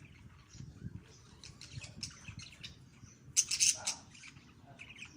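Pet lovebirds chirping in short, scattered calls, with a louder cluster of shrill chirps a little past halfway.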